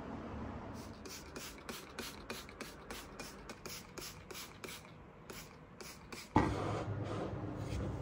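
A hand-held spray bottle squirted over and over in quick succession, about four short hissing sprays a second. After about six seconds there is a sudden knock, followed by louder steady background noise.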